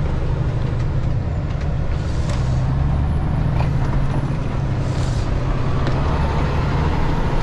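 Semi-truck's diesel engine running steadily under way, with road noise, heard from inside the cab.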